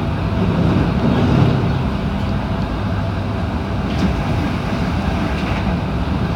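Electric passenger train running, heard from inside the front car: a steady rumble of wheels on rails and running gear, with one sharp click about four seconds in.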